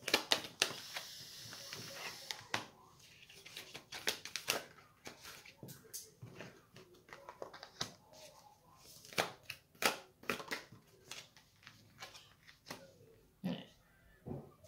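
Tarot cards being handled on a table: a rustle of cards for the first couple of seconds, then irregular soft clicks and taps as cards are moved and laid down, a few louder ones near the middle and near the end.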